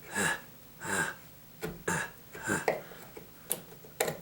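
A knife cutting and scraping wood as a notch is carved into a door jamb for a strike plate: about six short, rhythmic strokes, then two sharp clicks near the end.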